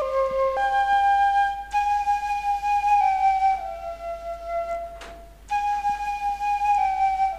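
Sampled quena, an Andean notched flute, played through a software instrument: a slow melody of long held notes that step up and down between a few pitches. About five seconds in, a short puff of breath noise falls between notes.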